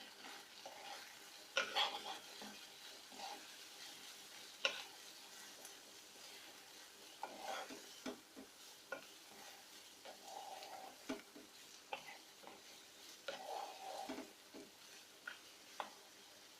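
Chopped capsicum and onions frying in a pan with fried cauliflower and sauce: a faint sizzle, with a spatula scraping and knocking against the pan every second or two as it is stirred.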